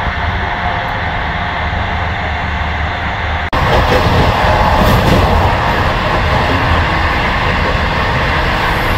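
Steady running noise of a moving passenger train heard from inside the carriage. About three and a half seconds in it cuts abruptly to a louder stretch of the same kind of noise.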